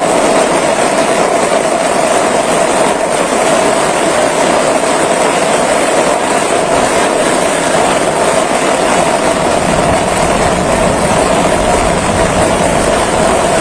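Steady, loud rushing of fast-flowing muddy floodwater.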